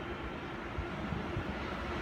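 Electric train approaching along the line, a steady low rumble that slowly grows louder.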